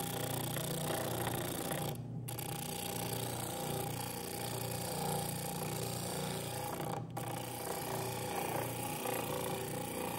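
Stationary disc sander running steadily with an oak workpiece held against the sanding disc, grinding a rounded corner smooth.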